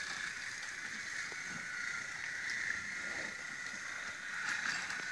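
Small electric motor of a battery-powered toy locomotive whirring steadily as it runs along wooden track, with a few faint clicks.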